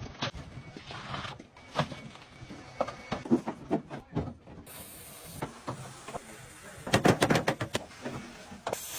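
Workshop clatter from car-body restoration work: scattered metal knocks and taps, then a quick run of sharp impacts near the end.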